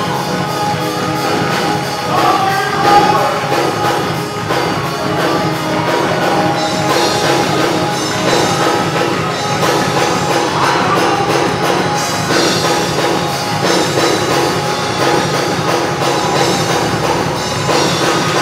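Church music with singing over a band of instruments and drums, with a steady beat.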